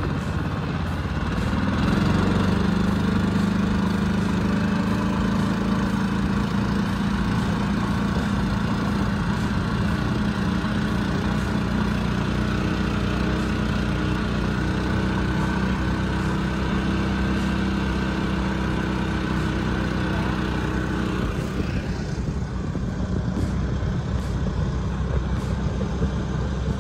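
Harbor Freight Predator 420 13 hp single-cylinder engine driving a Swamp Runner surface-drive mud motor, opened up about two seconds in and then running steadily at full throttle with the jon boat at top speed. About 22 seconds in, the engine's steady tone gives way to a rush of wind and water.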